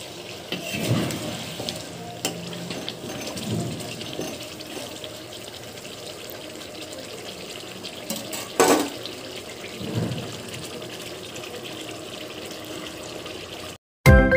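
Mutton gravy bubbling in a pot on the stove, with a slotted spoon stirring and scraping the pot now and then; one scrape a little under nine seconds in is the loudest. The sound cuts off suddenly just before the end.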